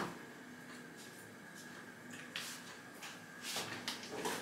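Faint kitchen handling noises: a few soft knocks and scrapes of utensils and containers, about two and a half seconds in and again near the end, over a low steady hum.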